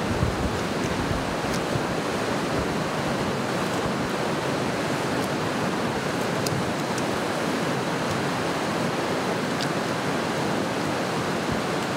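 Steady rush of river rapids, with a few faint clicks.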